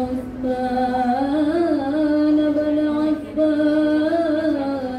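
A group of women singing an Arabic sholawat in unison, in long drawn-out melodic notes, with a short breath break a little after three seconds in.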